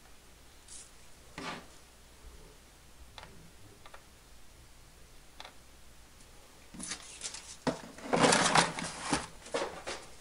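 Handling noises on a workbench: a few separate clicks and taps, then a dense run of knocking, clattering and rustling from about seven seconds in, as the foam model airplane is turned over and repositioned.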